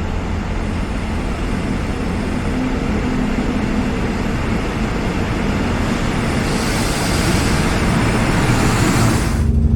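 Passenger train running at a station platform: a steady low rumble and rushing noise that grows gradually louder, with a hiss added for the last few seconds before the sound cuts off suddenly.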